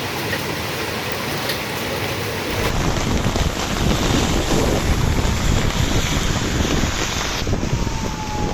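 Thunderstorm wind and rain making a steady rush, with gusts buffeting the microphone that grow louder about three seconds in.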